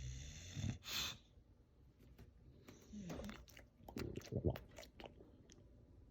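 A moose coughing: short, sudden coughs, one just under a second in and a quick cluster of them around four seconds in.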